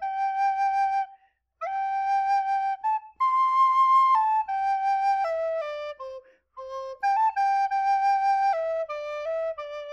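A recorder playing a slow melody of held notes, pausing for breath briefly about a second in and again about six seconds in. The melody steps down in pitch in the second half.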